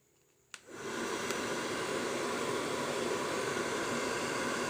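A hair dryer clicked on about half a second in, then blowing steadily to speed the drying of freshly applied glue.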